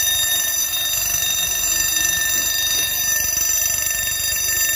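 Fire alarm sounder going off continuously with a steady, unbroken tone, triggered by a smoke test on a smoke detector of a Honeywell addressable fire alarm system.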